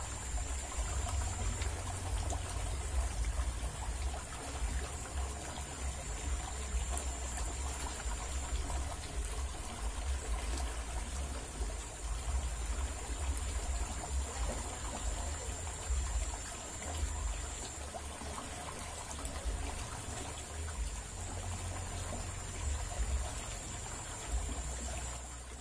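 Shallow water rushing steadily down a narrow concrete ditch, an even flowing and splashing sound.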